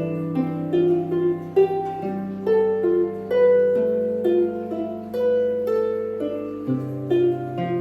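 Harp played slowly and freely, single plucked notes in the middle range ringing on and overlapping over sustained low bass strings.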